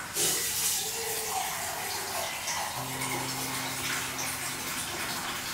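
Water running from a kitchen tap into a sink, steady throughout. A low steady tone comes in about halfway through.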